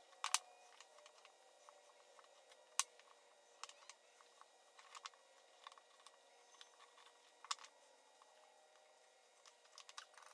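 Faint, scattered clicks and taps of a marking gauge and a workpiece being handled while scoring layout lines on wood. The louder clicks come just after the start, about three seconds in and about seven and a half seconds in.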